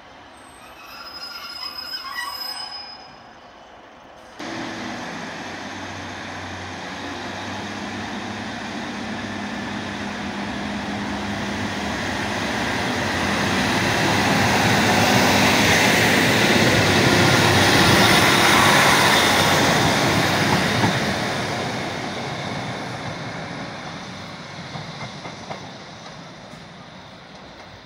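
Northern Class 155 diesel multiple unit passing along the platform at close range. The underfloor diesel engine drones and the wheels run on the rails, building to a loud peak about halfway through and then fading as the train draws away. A quieter opening cuts off abruptly about four seconds in.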